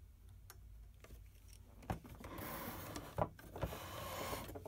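A few faint clicks, then about two seconds of rubbing, scraping noise with two clicks in it, from hands handling the printer's mechanism and the camera.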